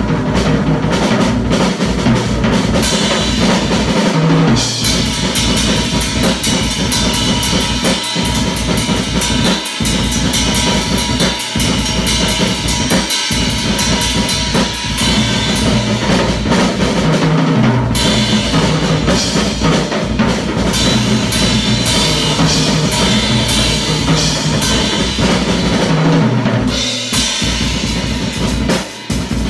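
Acoustic drum kit played: kick drum, snare and cymbals in a busy, loud groove. Dense cymbal work comes in about four to five seconds in, drops out briefly past the middle, and thins near the end.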